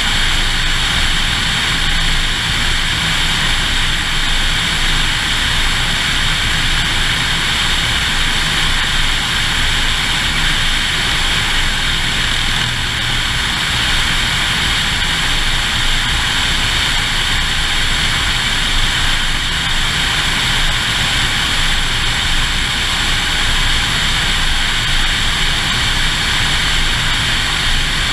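Single-engine Cessna in steady flight: the piston engine and propeller drone evenly under a constant rush of wind over a camera mounted on the outside of the fuselage.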